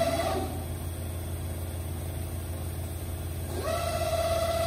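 Komo Fusion 512 five-axis CNC router running, with a steady low hum throughout. Its drives whine as the spindle head moves: the whine stops about a third of a second in and rises back in about three and a half seconds in.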